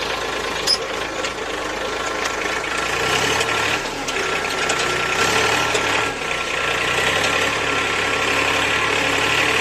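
Mini tractor running with a steady mechanical drone and a thin whine, and a single click a little under a second in.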